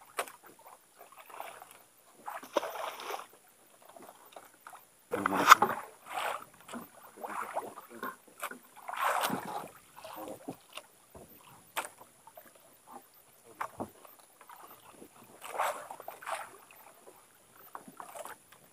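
Water lapping and splashing against a small boat in irregular surges, with a few sharp knocks in between.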